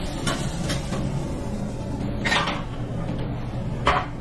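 Kitchen clatter while cooking: a few scattered knocks and clacks of kitchenware, the sharpest near the end, over a steady low hum.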